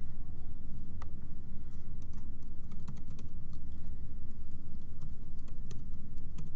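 Typing on a computer keyboard: a run of quick, irregular key clicks starting about a second in, over a steady low room rumble.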